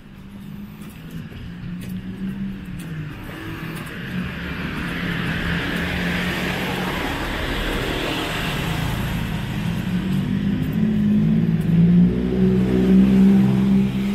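Small motor scooter riding towards and past close by, its engine growing louder to a pass about eight seconds in. A louder low drone with several steady pitches builds near the end.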